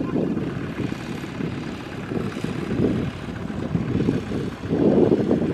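Kubota ZT120 walk-behind tractor's single-cylinder diesel engine running under load, pulling a loaded trailer, growing louder briefly near the end.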